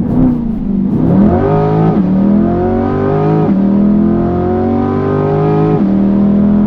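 A 2020 Chevrolet C8 Corvette's 6.2-litre V8, running through an aftermarket exhaust, accelerating hard at full throttle. The engine note climbs steadily in pitch and drops sharply with a quick dual-clutch upshift three times, about two, three and a half and six seconds in.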